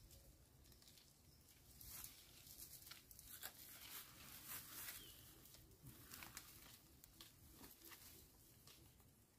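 Faint rustling of leaves and snapping of twigs as young phak wan shoots are picked off a leafy shrub by hand, a run of small crackles that is busiest in the middle.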